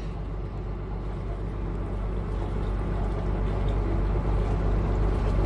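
Tour boat's engine running steadily under way, a low hum that grows slowly a little louder.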